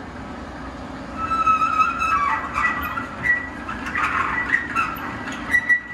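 High metallic squeaks and squeals, starting about a second in and repeating unevenly, as the parts rack is pulled out of a powder-coating oven. A steady low hum runs underneath.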